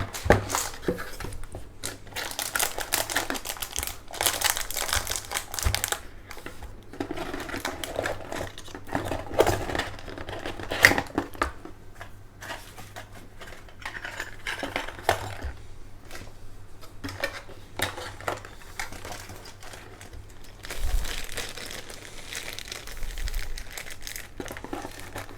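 Packaging crinkling and rustling as items are handled and packed into a box, with irregular light clicks and knocks.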